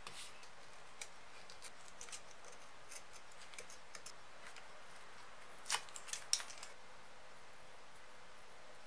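Faint small clicks and light scratching from fingers working masking tape on a hammer, with a brief run of sharper clicks about six seconds in.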